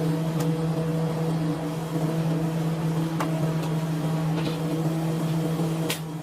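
Electric woodworking power tool running steadily with a constant low motor hum and a few light clicks; the level drops about six seconds in.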